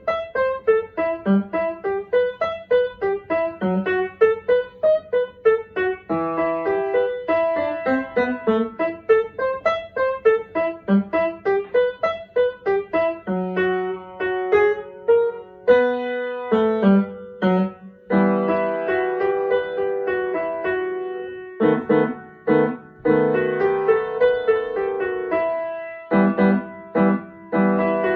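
Solo piano piece played on an acoustic upright piano, steady runs of single notes giving way to fuller, held chords about two-thirds of the way in, with a couple of short breaks near the end.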